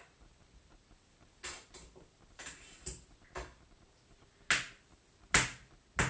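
A utensil tapping and scraping against a frying pan as butter is spread in it: a string of about seven sharp clicks with a short scrape midway, the last three the loudest.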